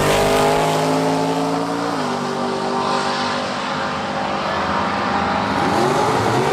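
Drag-racing dragster engines at full throttle: a high, steady engine note that drops in pitch about two seconds in, then another engine note rising near the end.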